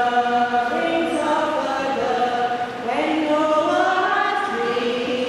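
A group of voices singing together in slow, long-held notes, a sung church response.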